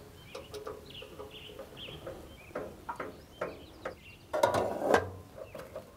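Metal handling noise as a powder-coated steel smoker leg is fitted against the grill's stainless body: light knocks and clicks, then a louder scraping clatter about four and a half seconds in. Faint bird chirps can be heard behind it.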